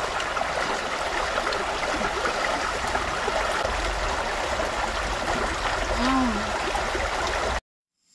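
Steady rush of a shallow mountain stream running over rocks. It cuts off suddenly near the end.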